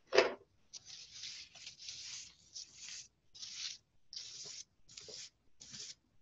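A bundle of boxwood sprigs brushed and dabbed onto paper with paint. It makes a run of short brushing strokes, about one every half second, after a louder first dab at the very start.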